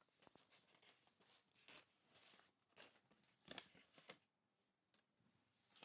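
Faint, irregular rustling and crackling, like something being handled, with a few sharp clicks.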